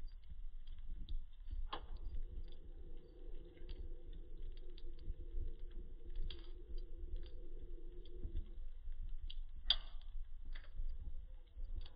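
Wood fire burning in a fireplace, crackling with scattered small pops over a low rumble, and one sharper pop near the end. A faint steady tone is heard from about 2 s in until about 9 s.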